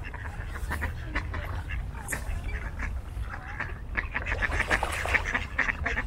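Mallard ducks quacking, many short calls in quick succession that grow thicker in the last couple of seconds, over a steady low rumble.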